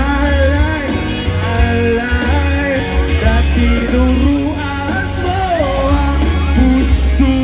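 Loud live music over a stage sound system: a singer's melody over a band with a heavy, steady bass line.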